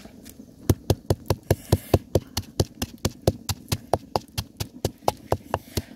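Wooden pestle pounding red chillies, garlic and salt in a mortar: rapid, even knocks at about four a second, starting under a second in.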